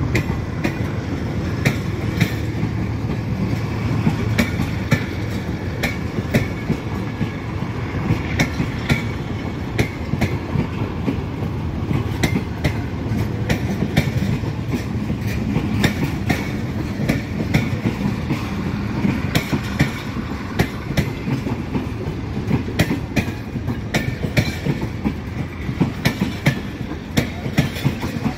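Departing Pakistan Railways Tezgam passenger coaches rolling past, a steady rumble with the wheels clicking over the rail joints, the clicks coming faster toward the end as the train gathers speed.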